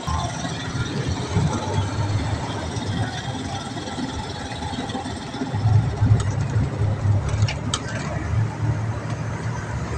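Vehicle engine running, heard from inside the cabin, a steady low rumble that grows louder a little past halfway as the vehicle moves off. A few light clicks come near the end.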